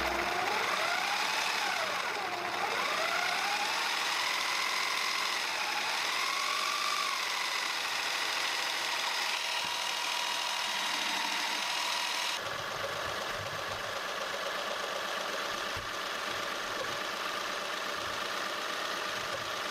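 775 DC motor driving a 3D-printed multi-stage planetary gearbox, running with a whine from the motor and plastic gears. For the first several seconds the pitch rises and falls as the speed is varied, then it holds steady; about twelve seconds in the sound changes and drops slightly.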